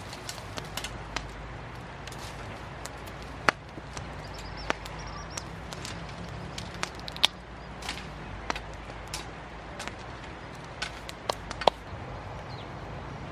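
Irregular sharp knocks and taps, roughly one or two a second and uneven in strength, over a low steady hum.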